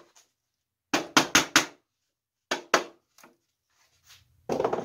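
A mallet tapping the wooden joints of a drawer together: a quick run of four strikes about a second in, then two more, a faint one, and a longer, rougher knock near the end.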